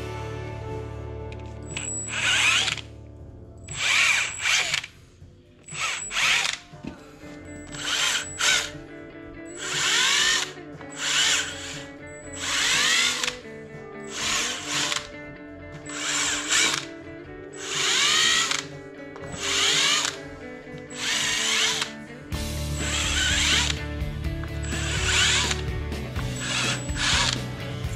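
Cordless drill driven into the bolt holes of an aluminium cylinder head in about sixteen short bursts, each under a second, with its pitch bending within each burst. The bursts come roughly every one to two seconds.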